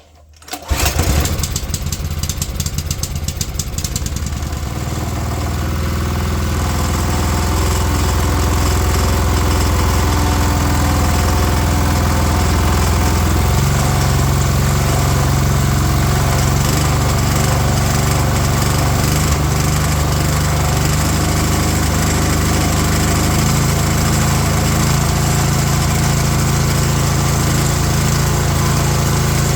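The water blaster's small petrol engine starts about a second in and runs on choke with no water pump fitted. It is rough for the first few seconds, then settles into a steady run, its speed stepping up slightly about halfway through. The freshly fitted carburettor is finicky to adjust, and the owner thinks the main jet may need enlarging.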